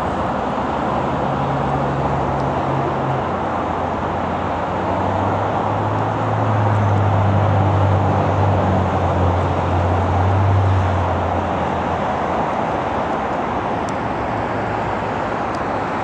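Steady roar of freeway traffic, a dense continuous wash of tyre and engine noise. A deeper low hum rises through the middle and fades again.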